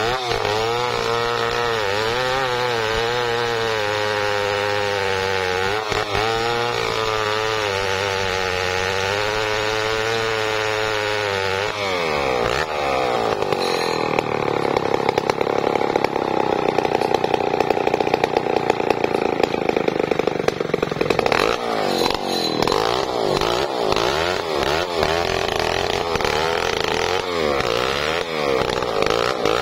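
Home-built chainsaw running under load as it rips an albasia log lengthwise, its engine note steady with a slight waver. About 12 seconds in the pitch drops, and after that the engine speed rises and falls unevenly.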